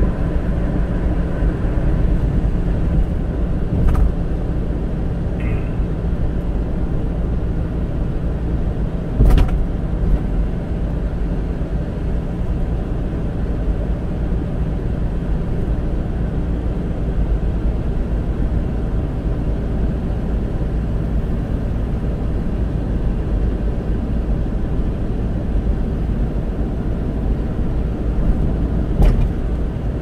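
Steady tyre and engine noise heard inside a car's cabin cruising at about 60 km/h, with three short sharp knocks, the loudest about nine seconds in.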